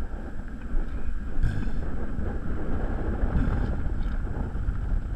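Strong wind buffeting the microphone, a continuous low rumble.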